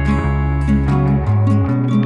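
Background instrumental music: plucked string notes in a steady rhythm over a held bass line.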